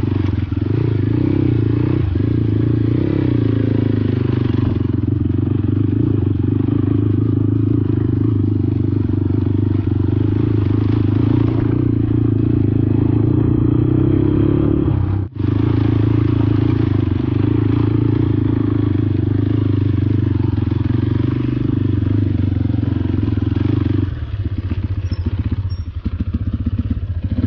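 Motorcycle engine running steadily while riding. There is a brief break about halfway, and near the end the engine sound changes to a slower pulsing beat.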